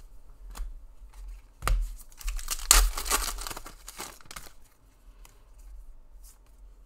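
A foil-lined trading-card pack being torn open by hand and its wrapper crinkled, loudest about three seconds in. Two sharp clicks come before the tearing.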